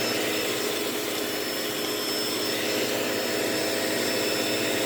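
Vacuum cleaner running steadily, a constant rush of motor and airflow with a steady high whine.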